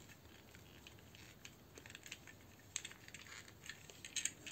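Faint clicks of hard plastic as a small Transformers figure's parts are pressed and snapped into place by hand: a few scattered clicks, mostly in the second half.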